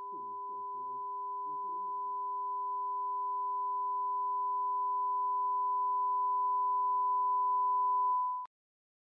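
A steady high-pitched sine tone with a fainter lower tone beneath it, swelling steadily louder and cutting off abruptly near the end, a film sound-design ringing. Faint muffled voices sit under it for the first two seconds.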